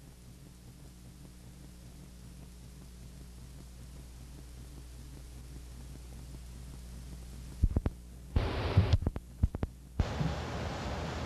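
Low steady electrical hum on an old news film's soundtrack, slowly growing louder. About eight seconds in come a few sharp clicks and crackling bursts, like a splice or edit in the tape. A steady rushing outdoor noise then follows.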